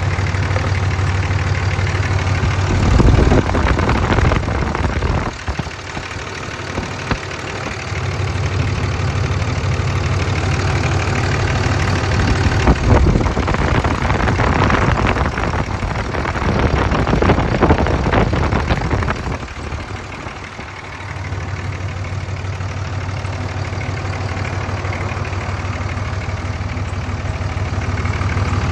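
The 5.9-litre Cummins diesel engine of a 2003 Dodge Ram 2500 idling steadily. Louder, rougher noise covers it a few seconds in and again for several seconds midway.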